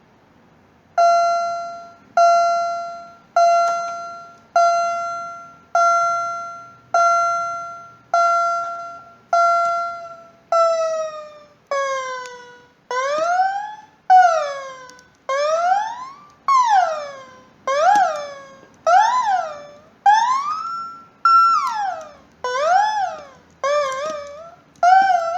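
Fire alarm tone sounding in repeating pulses, about one every 1.2 seconds, each fading away after its start. Steady in pitch for the first several pulses, then each pulse slides downward in pitch, and in the second half the pulses bend up and down ever more wildly, as if the alarm were malfunctioning.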